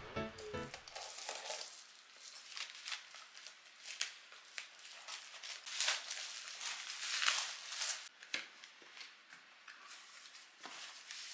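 Plastic bubble-wrap courier pouch being slit with a cutter, then crinkling and tearing as it is pulled open, with irregular rustles and light knocks of cardboard boxes being handled.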